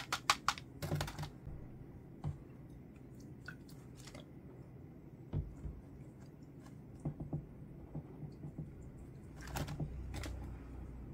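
Scattered light clicks and taps of small objects being handled: a quick run of them at the start, a few single ticks through the middle, and another cluster with a brief low rumble about nine to ten seconds in.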